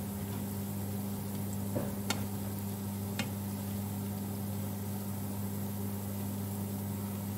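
Oil sizzling steadily as a pan of tofu balls deep-fries, over a steady low hum. Chopsticks click twice against the pan, about two seconds in and again a second later.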